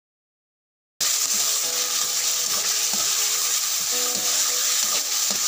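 Silent for about a second, then ground pork sizzling steadily in hot oil in a pan, with a few scrapes and taps of a metal spatula stirring it.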